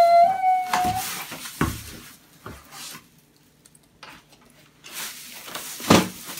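Cardboard box lid lifted off a flat-packed tabletop and the plastic wrap handled. There is a brief high held squeal at the start, then a few knocks and rustling, and a louder knock near the end.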